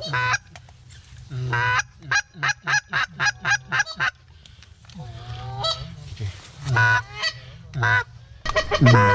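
Canada goose honks and clucks: a quick run of short clucks, about four a second, then a few longer honks about a second apart, loudest near the end.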